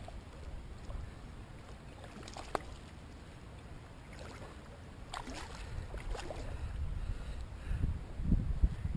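Shallow water lapping around a wading angler, with low wind rumble on the microphone that grows near the end, and a few light splashes as a small sea bass is drawn in at the surface.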